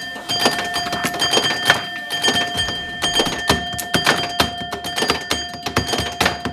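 Electromechanical pinball machine in play: a rapid, uneven run of clicks and thunks from flippers, bumpers and relays, with steady ringing tones underneath.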